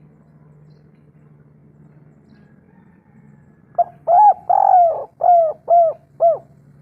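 Spotted dove (tekukur) giving its cooing call, starting about four seconds in. It is a quick note, two long drawn coos, then three shorter coos, each rising and falling in pitch.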